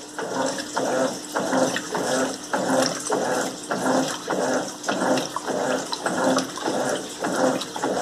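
Electrolux Turbo Limpeza 8 kg top-load washing machine agitating a load of rugs with its turbo agitation: the agitator swings back and forth in the water with a motor hum and a slosh on each stroke, a little over two strokes a second.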